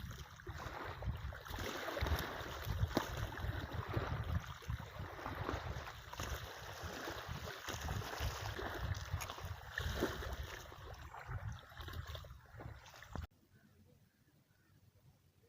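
Wind buffeting the microphone over water lapping, a rough, uneven rumble with small clicks, cutting off abruptly near the end.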